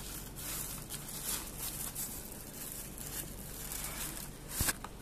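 Thin plastic bag crinkling and rustling in irregular bursts as it is handled and pulled open, with a sharper, louder crackle near the end.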